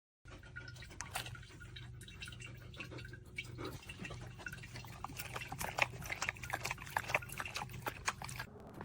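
Dog lapping water from an electric pet water fountain: quick wet lapping clicks, coming more often and louder from about halfway through, over the fountain pump's low steady hum.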